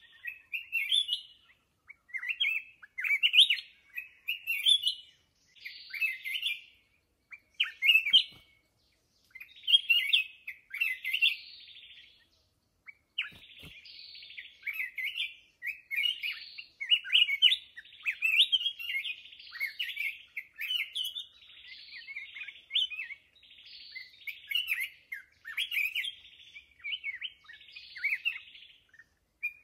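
Black-crested bulbul singing: short, varied warbled phrases, one every second or so, with brief pauses early on that close up into a near-continuous run of song in the second half.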